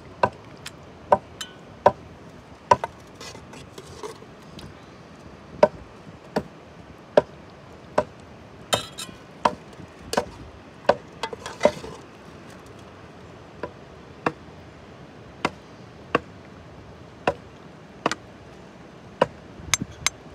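A metal spoon clinking and scraping against a steel bowl of cooked food: sharp, ringing taps at an irregular pace of about one a second. There are some longer scrapes around the middle.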